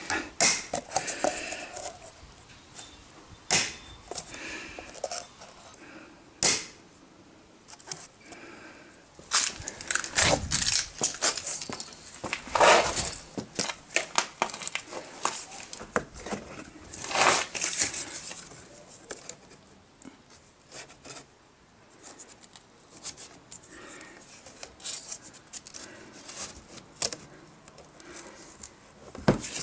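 Cardboard template being handled and held against a plastic mud flap: irregular rustling, scraping and light knocks, with a few louder scrapes around the middle.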